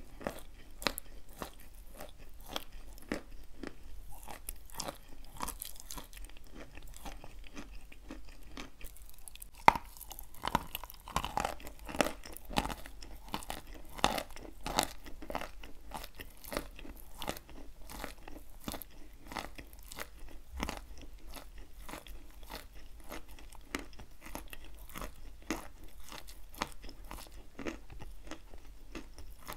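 Close-miked chewing of wet chalk coated in chalk crumbs: a dense run of crunching and wet mouth clicks, with the loudest crunch about ten seconds in.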